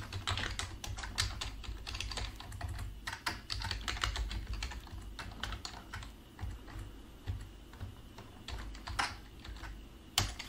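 Typing on a computer keyboard: quick runs of keystrokes for about the first six seconds, then a few scattered clicks.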